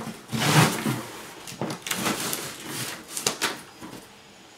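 A blade slitting the packing tape along the seam of a cardboard box: a long scrape in the first second, then several shorter scraping strokes as the tape and cardboard crackle.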